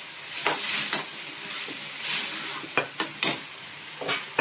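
Metal spatula stirring and scraping thick pav bhaji in a metal kadhai, over a steady sizzle from the simmering bhaji. The spatula clicks sharply against the pan several times, three in quick succession about three seconds in.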